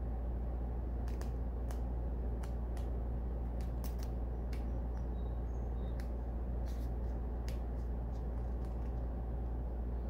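Light, irregular clicks and ticks, about two a second, from oracle cards being handled, over a steady low hum.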